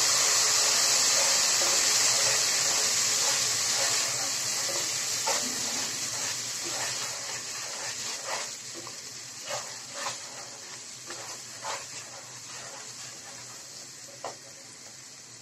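Onions, green chillies and ground spices sizzling in hot oil in a pot as they are fried for a curry base, stirred with a wooden spatula. The sizzle is loudest at first and dies down gradually, with scattered knocks of the spatula against the pot.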